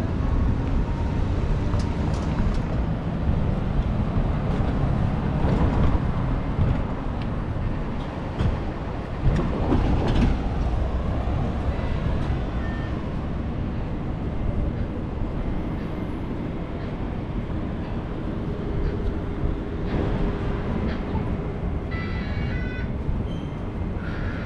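Wind rumbling on the microphone and street noise during a bicycle ride through city traffic, with a vehicle passing about ten seconds in.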